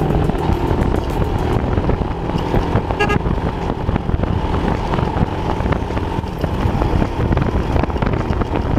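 Motorcycle riding along a road: engine and road noise with wind buffeting the microphone. A vehicle horn toots briefly about three seconds in.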